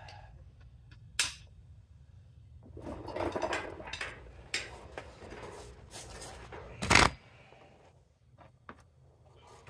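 Steel wrench and socket clinking and knocking as a long-handled bar is worked against a seized nut on a 1960 GMC truck's rear end, with one loud metal clank about seven seconds in.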